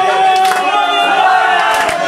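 A man singing one long held high note, with a roomful of people clapping and calling out along with him.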